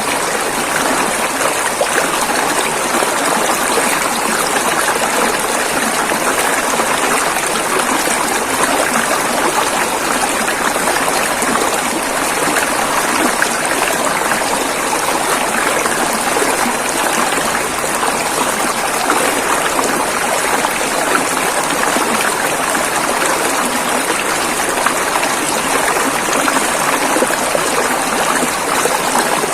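River water flowing over rocks, a steady rush with babbling and trickling.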